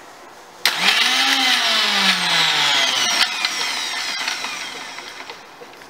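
Electric mixer grinder grinding chopped banana peels with a little water into a paste. The motor starts about half a second in, rises quickly in pitch, then winds down with a steadily falling whine that fades away toward the end.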